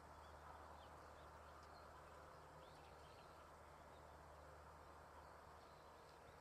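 Near silence: faint outdoor ambience with a few distant small birds chirping briefly and scattered throughout.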